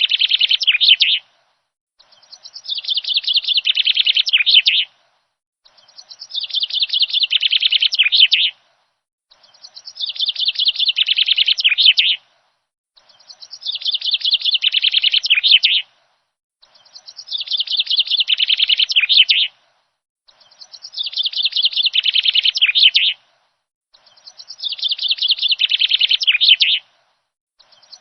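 A bird song phrase, a quick run of high chirping notes lasting about three seconds, repeated identically about every three and a half seconds with silence between, as a looped recording.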